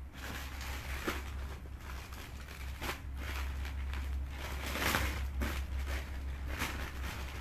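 Clothes being handled and sorted, rustling in irregular bursts a second or two apart, over a steady low hum.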